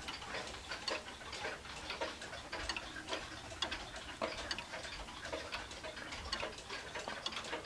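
1970s Emperor grandfather clock with a chain-driven Hermle movement, ticking steadily as the pendulum swings.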